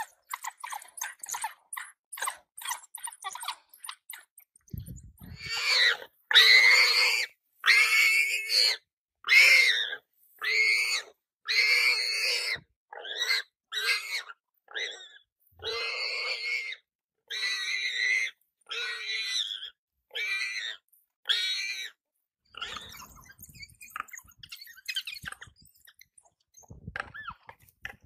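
An animal set upon by a pack of African wild dogs squealing over and over in distress, about a dozen loud cries each half a second to a second long, beginning about five seconds in and dying away to scattered softer sounds over the last few seconds. The opening seconds hold quick faint clicks and crunches.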